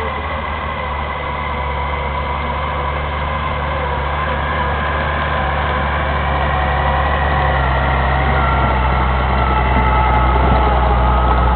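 Engine of a tracked, tank-like vehicle running steadily as it drives toward the microphone, growing louder as it comes closer.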